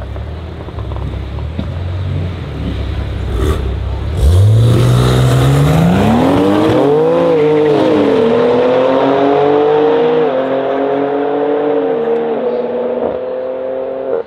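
Tuned 725 hp BMW M3 G80 twin-turbo straight-six with Akrapovic exhaust and a black BMW hatchback held on revs at the start line, then launching hard about four seconds in. The engine note climbs steeply and dips in pitch at several upshifts as the cars accelerate away down the strip.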